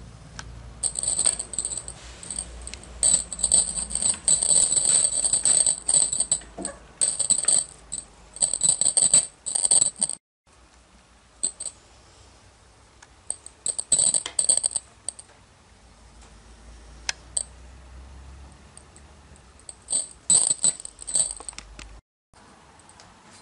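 High metallic jingling in quick rattling spells: a long run over the first ten seconds, then two short spells later.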